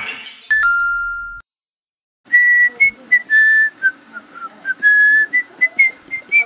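A bright chime rings once about half a second in, then stops. After a short silence a whistled tune begins: a single pure line of short and held notes that wander up and down.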